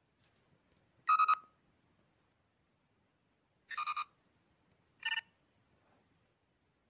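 Three short Star Trek LCARS-style computer chirps from the phone's interface, each a quick warbling beep of several tones at once; the third is the shortest.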